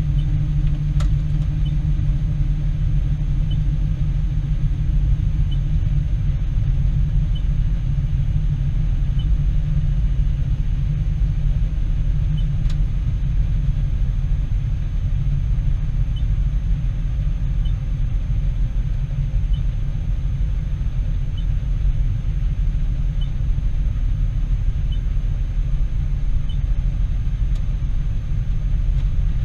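Heavy vehicle engine running steadily, a constant low rumble with a faint high whine above it.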